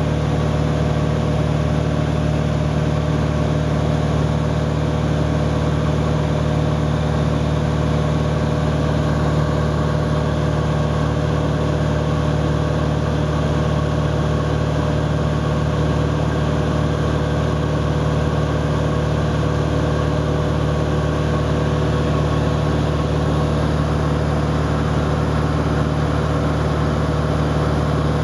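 Small propeller airplane's engine and propeller droning steadily in cruise, heard from inside the cabin: an even rumble with several steady hum tones that never change.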